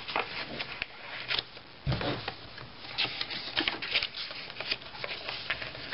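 Paper rustling and crinkling as hands slide tags out of a pocket and turn the stiff pages of a handmade paper journal, in short irregular crackles, with a soft thump about two seconds in.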